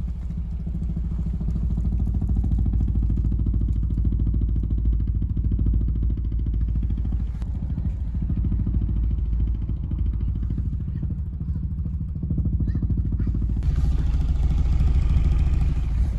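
Volkswagen Jetta's 1.4-litre turbo engine idling just after a cold start, with a loud, deep bass-like drone and a rapid knocking vibration from the rear of the car. The owner suspects the exhaust pipe is vibrating.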